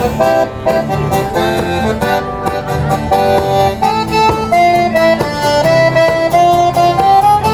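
A live folk band playing a dance tune, led by several button accordions over acoustic guitar strumming.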